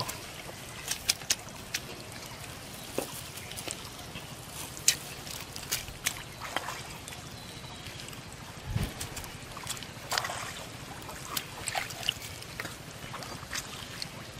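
Wet water weeds and nylon netting being handled by hand, with scattered small clicks and rustles and a faint trickle of water.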